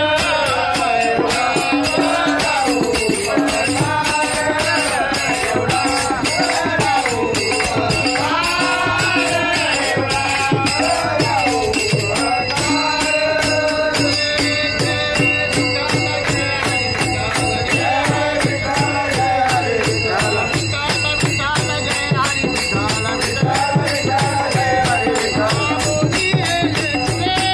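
Group of men singing a devotional bhajan together, to a fast, steady beat of hand clapping.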